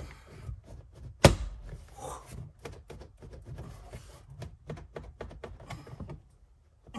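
Plastic rear interior trim panel of a Shelby GT350R being worked loose by hand, with a sharp snap about a second in, then smaller clicks, knocks and rubbing of plastic as its retaining clips are pried at.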